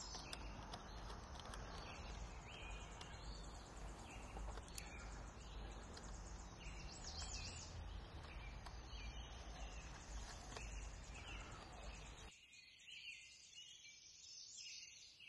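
Faint outdoor background of birds chirping now and then over a low steady rumble, which cuts off suddenly about twelve seconds in.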